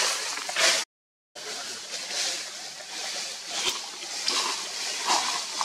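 Outdoor rustling noise that swells and fades. It cuts out completely for about half a second roughly a second in, and there is a single sharp click a little past the middle.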